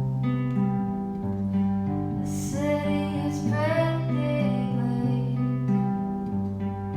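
Background music: acoustic guitar and bass with a woman's voice singing a short phrase in the middle.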